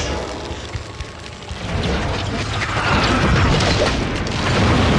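Martial-arts drama fight sound effects over the score: a low rumble that swells about two seconds in into loud, heavy booming.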